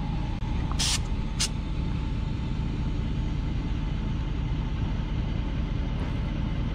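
Two short hisses of air about a second in, as the valve of an inflatable stand-up paddle board is worked to check its pressure, over a steady low rumble.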